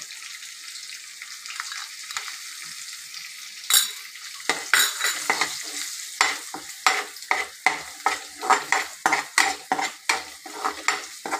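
Chopped garlic sizzling in hot oil in a steel kadhai. A sharp clink comes about four seconds in, and then a metal spoon stirs and scrapes around the pan in quick repeated strokes, about three a second.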